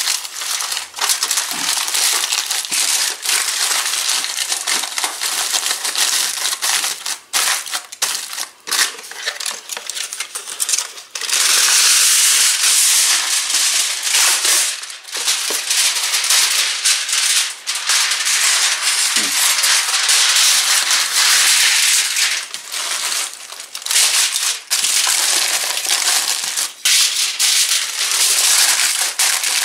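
Aluminum foil crinkling and crumpling as it is folded and pressed by hand around a foil packet. It goes on in a stream of sharp crackles with brief pauses, and is loudest in long stretches about halfway through and again a few seconds later.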